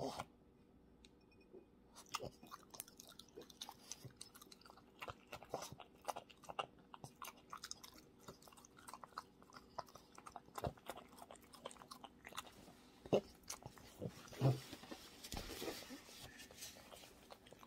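French bulldog chewing and smacking on small hand-fed bites: quiet, irregular wet clicks of its jaws and tongue. Near the end a paper towel briefly rustles against its mouth.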